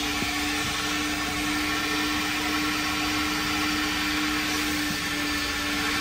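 A motor-driven machine running steadily, with a constant low whine over a hiss.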